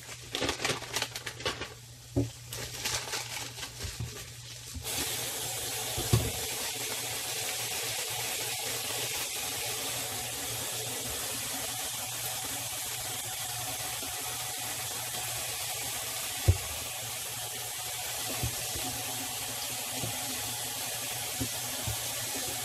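Handling clicks and rustles, then about five seconds in a kitchen tap is turned on and runs steadily into the sink, with a few sharp knocks against it.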